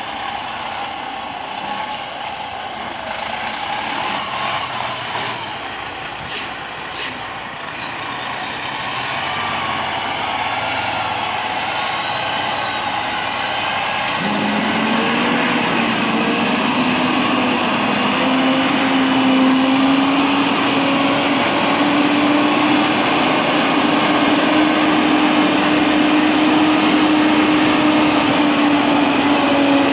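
Diesel semi-truck hauling a container trailer, its engine running as it moves slowly. About halfway through, a steady engine drone comes in and slowly rises in pitch as it grows louder.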